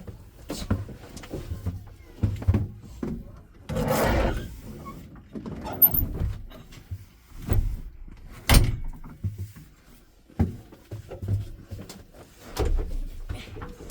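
Irregular knocks, bumps and clicks, as of things being handled and moved, with a longer rushing noise about four seconds in.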